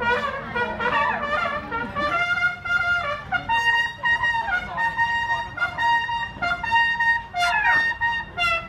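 Music with a brass-like lead instrument playing a melody of held, stepping notes.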